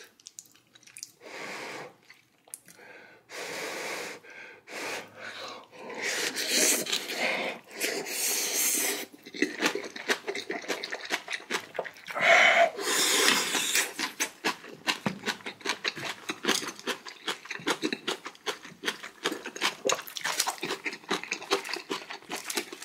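Close-miked eating: several sharp breaths in and out, heavy from the heat of very spicy kimchi stew, then from about halfway on a steady run of wet chewing and mouth clicks as rice and stew are eaten.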